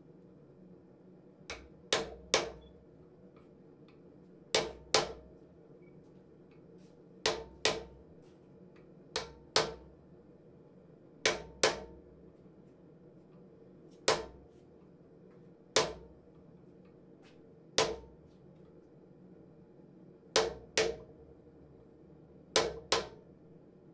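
Blacksmith's hand hammer striking a red-hot bar on an anvil: slow, evenly paced blows, mostly in pairs about half a second apart, every two seconds or so. Each blow has a short metallic ring.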